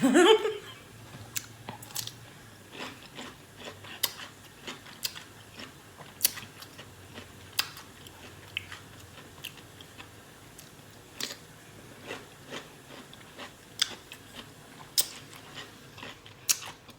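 A person chewing and biting pickles close to the microphone: irregular crunches and wet clicks, one at a time, with a short vocal sound at the very start.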